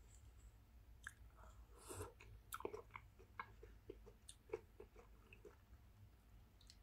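Faint chewing and wet mouth smacks of someone eating instant cup miso soup with chopsticks: a string of short, irregular clicks over a low room hum.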